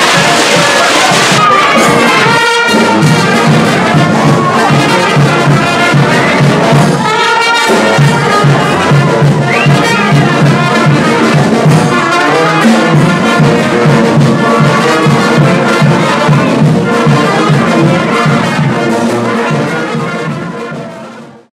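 Heavy rain pouring for about the first second and a half, then a brass band with trumpets and tubas playing a tune over a steady beat, fading out near the end.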